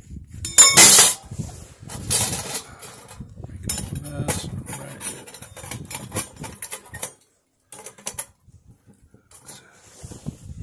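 Stainless-steel pot supports of an Ohuhu wood gas stove clinking and rattling as they are fitted onto the burning stove. The loudest clatter comes about half a second in, and the handling stops about seven seconds in.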